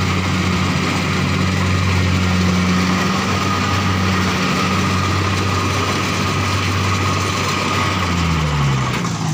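Kubota combine harvester's diesel engine running steadily at working speed, close by. About eight seconds in, the engine note falls in pitch as it slows down.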